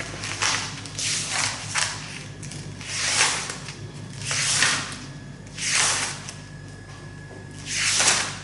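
Pages of a book being turned: about seven short papery swishes over a steady low hum.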